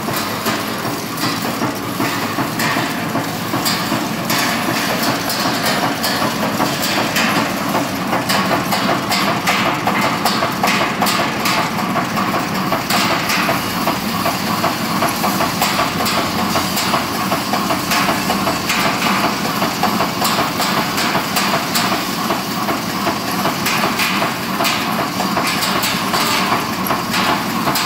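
Z94-5C wire nail making machine running, a fast, steady clatter of its repeated cutting and heading strokes.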